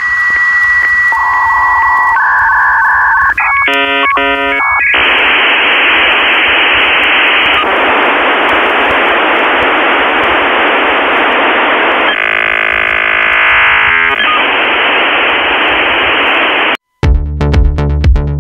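Radio-style electronic sound effects: steady beeping tones and a short burst of warbling data-like chirps, then a long stretch of radio static hiss that cuts off suddenly near the end. Electronic music with a drum-machine beat starts right after.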